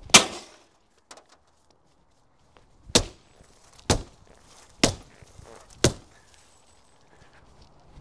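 Steel crowbar striking a car's laminated windshield glass, six hard whacks: one at the start, four about a second apart from about three seconds in, and one at the end. The cracked glass holds rather than breaking through.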